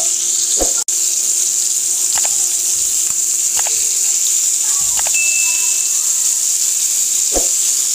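Hilsa fish pieces frying in hot oil, a steady sizzling hiss, while a spatula turns them over and knocks against the pan a few times.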